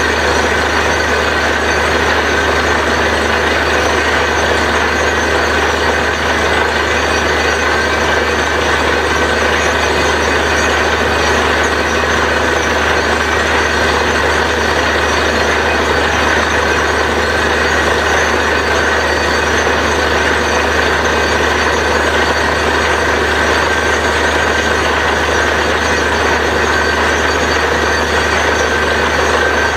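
Truck-mounted borewell drilling rig running at steady load during drilling, its diesel engine and air compressor making one loud, unchanging drone with a hiss. Water and rock cuttings are being flushed out of the bore.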